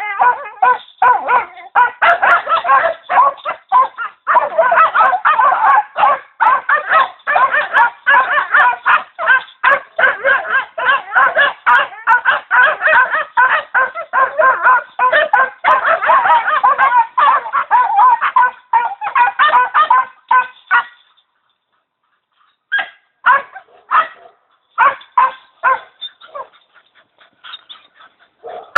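Young Bosnian coarse-haired hounds barking and yapping in a rapid, continuous string, mixed with geese honking. The calling breaks off about 21 seconds in, and after a short pause scattered calls follow.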